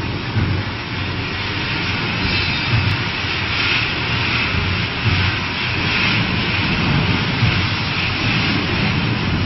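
Drum roasting machine for oil seeds and nuts running with a steady roar and low hum, joined from about two seconds in by the rushing hiss of seeds being poured into the rotating drum.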